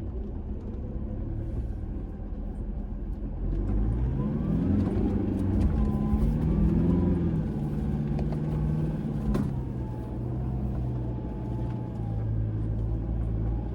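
Toyota Fortuner's engine pulling through soft sand. The revs rise about four seconds in, rise and fall for a few seconds to keep momentum, then settle to a steady drone. There is a single sharp knock a little past the middle.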